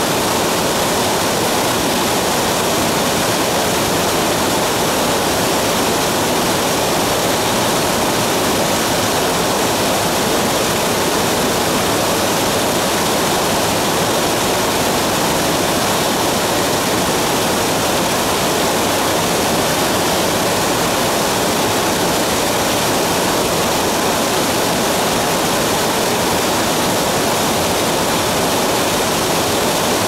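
Mountain stream water rushing steadily over a rocky bed, an even unbroken rush of water.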